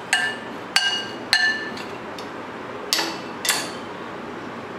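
A spoon knocking against a glass mixing bowl while dry spice powders are stirred: about six sharp clinks, irregularly spaced, each with a brief glassy ring.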